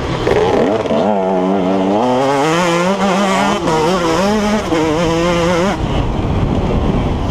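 KTM 150 XC two-stroke dirt bike engine revving hard under acceleration, its pitch rising and falling as the throttle and gears change over rough ground. Near the end the engine note drops away, leaving a rough rushing noise.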